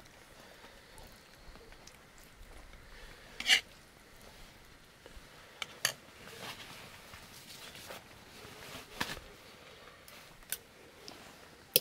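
Cutlery clinking and knocking against a cooking pot or plate: a handful of separate short clicks spread out, the loudest about three and a half seconds in.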